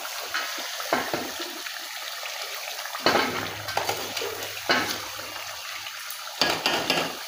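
Steel ladle stirring chicken karahi in a metal pot, clanking and scraping against the pot about four times, over a steady hiss from the gas burner under it.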